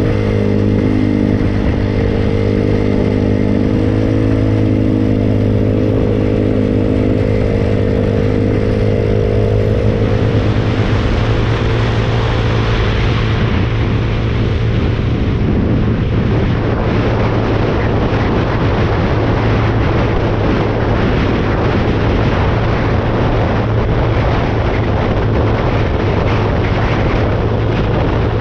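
Small mini-bike engine running at a steady pace under way, its note wavering slightly. From about ten seconds in, a loud rushing noise rises over it and stays.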